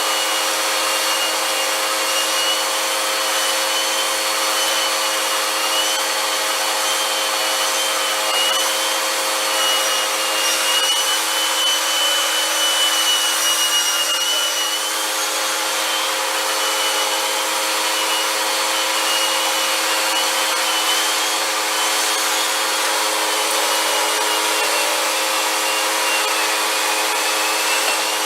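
Vacuum cleaner running steadily, with a high motor whine that wavers slightly in pitch over a rush of air.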